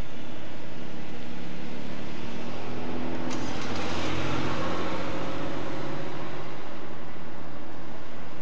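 Steady outdoor background noise with a low motor-vehicle engine hum that grows louder around the middle and fades again, and a single sharp click just after three seconds in.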